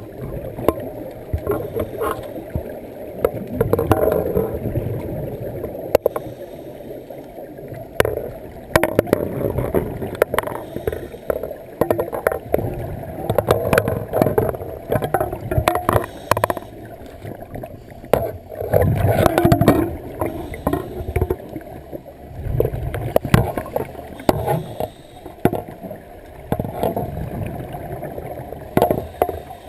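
Scuba diver's exhaled bubbles gurgling underwater, swelling in bursts every few seconds in time with the breathing, with scattered small clicks and knocks.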